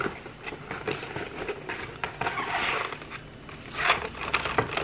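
Packaging of a lip pencil kit being handled and opened: a rustling scrape about two to three seconds in, then a few short clicks near the end.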